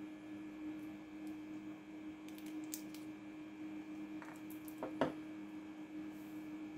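A 9-volt battery being snapped into its clip connector and set down on a wooden table: a few light clicks, the sharpest about five seconds in, over a steady faint hum.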